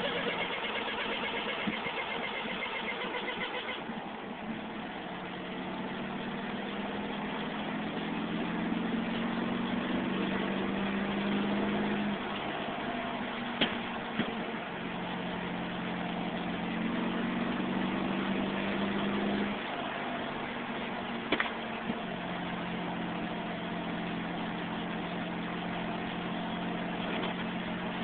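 Car heard from inside while driving: the engine hum climbs slowly, drops twice as the gears change and climbs again. For the first few seconds a high, fast-pulsing whir sits over it, the strange noise the owner puts down to the speedometer. A couple of sharp clicks come midway.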